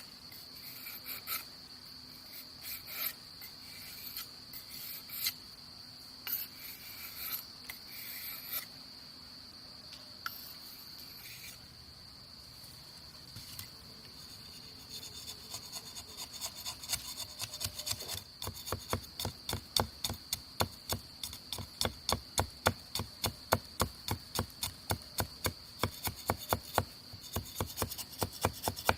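Steady high drone of insects, with regular scraping strokes on wood, a couple a second, that start about halfway through and grow louder.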